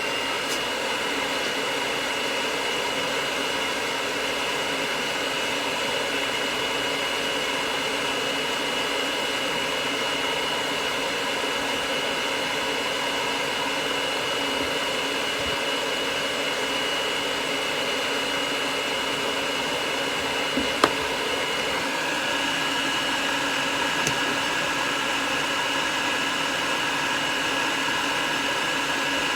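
Hand-held hair dryer blowing steadily, drying a cat's fur, with a constant high whine. About two-thirds of the way through the whine shifts slightly higher, and there is a single sharp click shortly before.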